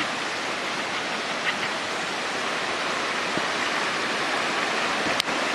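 Kimsey Creek, a small mountain stream, rushing over rocks: a steady, even water noise.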